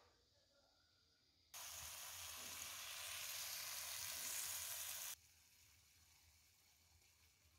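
Hot zucchini ratatouille sizzling as it is tipped from a wok onto a plate: a steady, even hiss that starts and stops abruptly and lasts about three and a half seconds.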